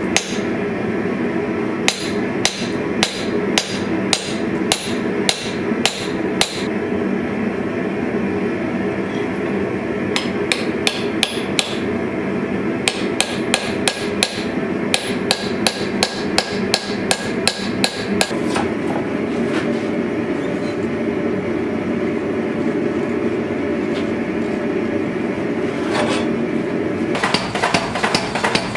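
Hand hammer striking red-hot steel on an anvil in quick series of ringing blows, with pauses between series, over a steady machine hum. Near the end a power hammer strikes the hot bar in a fast run of blows.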